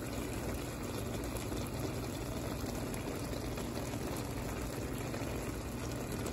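Yellow rice boiling in a pot: a steady bubbling of the cooking water, which the rice has not yet absorbed, so the rice is still cooking.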